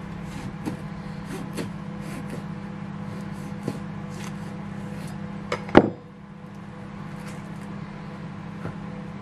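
Kitchen knife cutting an avocado on a plastic cutting board: scattered light taps and clicks of the blade and fruit against the board, with one loud sharp knock a little past halfway. A steady low hum runs underneath.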